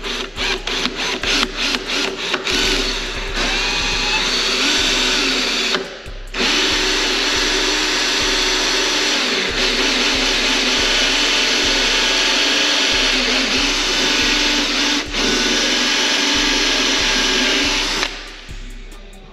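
Power drill running under load, boring the mounting holes for a wicker bill. It starts a couple of seconds in, stops briefly about six seconds in, then runs steadily, its motor pitch dipping for a moment near the middle, and cuts off near the end.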